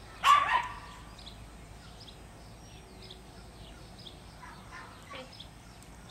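A short, loud animal call just after the start, over faint repeated bird chirps.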